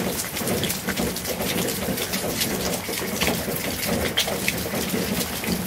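Steady rain falling, with individual drops striking close by.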